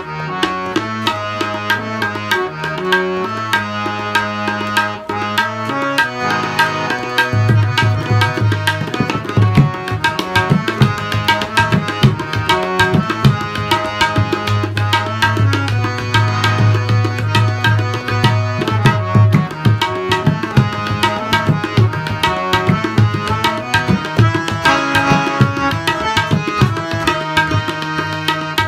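Instrumental duet of harmonium and tabla: the harmonium plays a sustained melody over held notes while the tabla keeps up quick strokes. About seven seconds in, deep, pitch-bending bayan strokes come to the fore.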